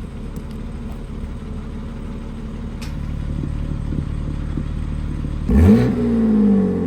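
BMW M3/M4 engine idling through an aftermarket single non-resonated mid-pipe with the exhaust valves closed, then revved once sharply about five and a half seconds in, the pitch jumping up and falling back in a long glide.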